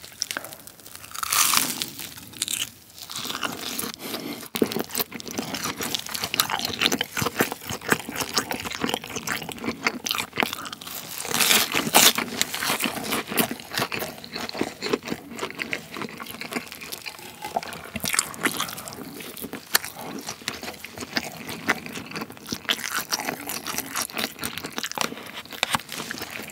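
Close-up crunching and chewing of a crisp breaded pork cutlet roll filled with cheese, bitten and eaten by hand. The breadcrumb crust crackles with each bite, loudest about halfway through.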